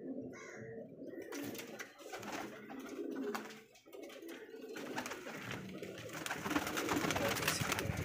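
Domestic pigeons cooing in a loft, with a busy rustling noise across the sound that grows louder in the second half.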